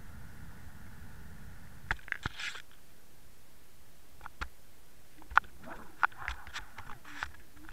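Underwater recording from a submerged camera rig: scattered sharp clicks and knocks as the rig moves and spins over the rocky bottom. A faint steady hum fades out about two seconds in.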